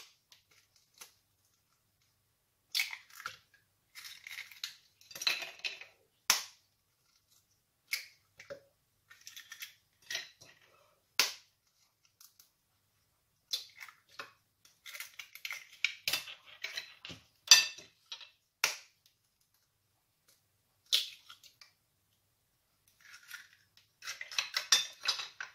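Eggs being cracked open one after another over a plastic NutriBullet blender cup: scattered sharp taps and crackles of breaking shell, with short pauses between.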